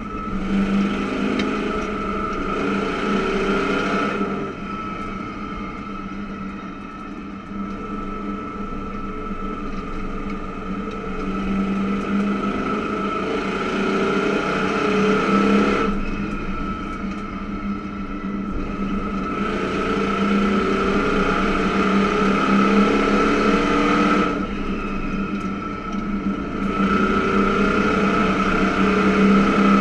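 Race car engine heard from inside the cockpit during hot laps, running steadily and swelling louder then easing off every few seconds: on the throttle down the straights, lifting through the turns.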